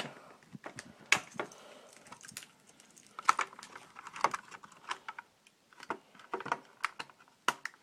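Irregular small plastic clicks and knocks from a headlight switch, its connector and wires being handled.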